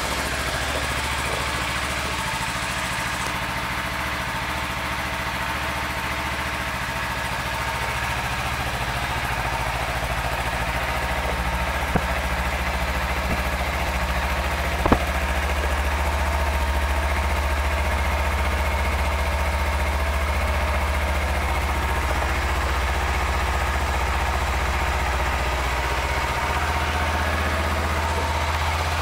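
2013 Kawasaki Ninja 300 SE's parallel-twin engine idling steadily, just after being started. There are two brief clicks, about 12 and 15 seconds in.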